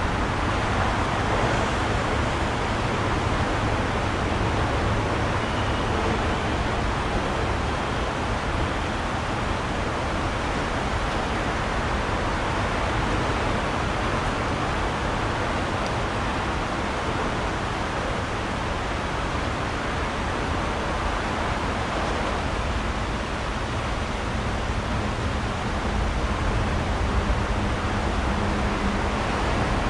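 Steady rushing of a shallow stream running over stones, with no distinct events.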